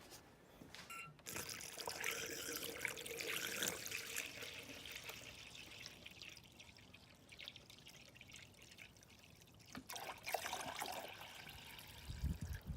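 Water being poured into a car's engine cooling system through a filler neck, trickling and splashing in. One spell of pouring starts about a second in and tails off, and a second spell comes near the end.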